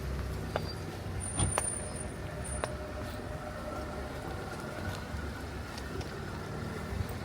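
City street traffic in the rain. A passing vehicle's engine rumble fades away at the start, leaving a steady hiss of rain and wet road with a few scattered sharp ticks. A brief, very high thin whistle sounds twice in the first few seconds.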